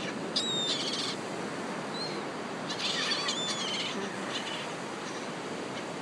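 Gulls calling in two short bursts, about half a second in and again around three seconds in, over a steady hiss of wind and surf.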